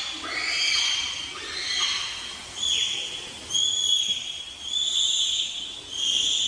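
Bonobo calls: a run of about seven high-pitched calls, roughly one a second, some of them falling in pitch.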